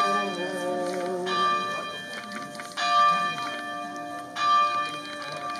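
A single church bell tolling slowly, one stroke about every second and a half, each stroke ringing on into the next. It is the slow toll of a funeral bell during a burial procession.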